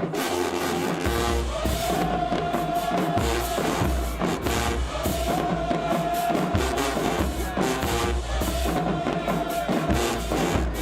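HBCU marching band playing full, brass-heavy, with trombones and tubas prominent over a bass drum and drumline beat, holding long notes.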